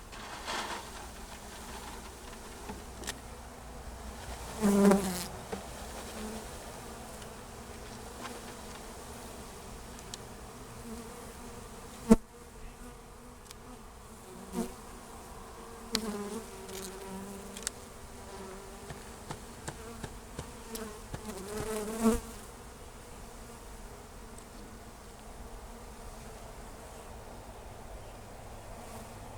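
Italian honeybees from a package buzzing steadily as they are shaken out into a hive, with a few louder swells as bees fly close. A single sharp knock sounds about halfway through.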